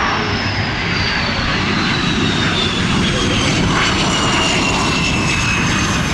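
Boeing F/A-18 Super Hornet's twin General Electric F414 turbofans on landing approach. A loud, steady jet rumble sits under a high whine that slides steadily down in pitch.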